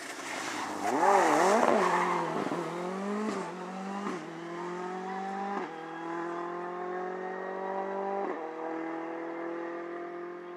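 Ford Fiesta rally car engine, loudest about a second in with revs rising and falling as it slows for a bend, then accelerating hard through the gears: four upshifts, each a sudden drop in pitch followed by a steady climb in revs.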